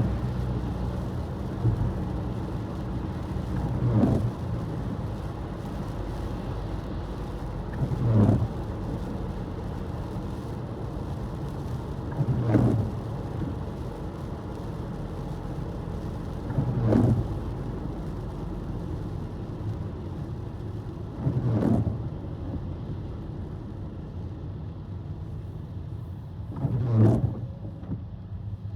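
Steady car road and engine noise heard from inside the cabin, with a short windshield-wiper sweep about every four seconds on an intermittent setting.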